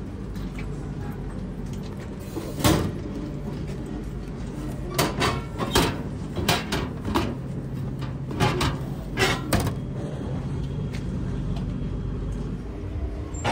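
Retro hamburger vending machine delivering: one sharp thud about three seconds in as the boxed hamburger drops into the outlet, then a run of clacks and knocks as the metal push-flap of the outlet is worked and the box pulled out, over a steady low hum.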